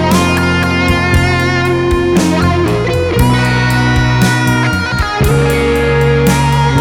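Song with electric guitar to the fore, held notes over a steady beat.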